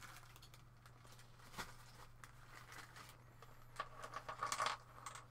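Small plastic zip-lock bag crinkling and rustling in a quick cluster about four seconds in as it is handled and opened. A single click comes earlier, and a low steady hum runs underneath.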